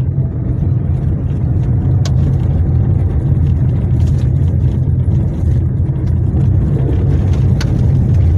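Car driving over a rough, broken road: a steady low rumble of engine and tyres, with a few sharp knocks from bumps and stones.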